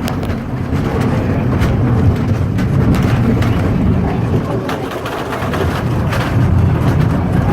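Steady low rumble of a moving train, with scattered sharp clicks and knocks.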